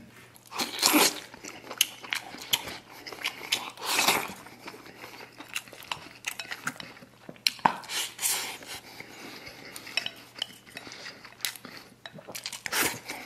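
Eating with chopsticks from a porcelain rice bowl: scattered sharp clicks of the chopsticks against the bowl, mixed with the mouth sounds of eating rice and braised pork, with several louder bursts of eating noise.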